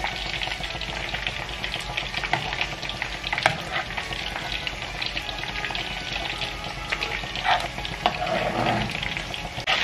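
Thick béchamel sauce of butter, flour and milk being stirred in a hot frying pan. The spoon scrapes through it while the sauce crackles with many small pops, and the stirring gets louder about three-quarters of the way through.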